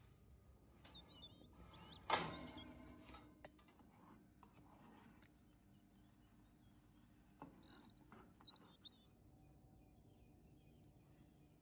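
A single sharp metal clank about two seconds in, ringing briefly, as the metal baking tray of meringues goes into the oven. Otherwise quiet, with faint bird chirps now and then.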